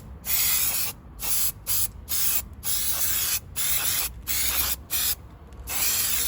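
Aerosol can of Mamba Bond spray adhesive hissing in repeated short bursts, each under a second, with brief gaps between them, as glue is sprayed onto the surface.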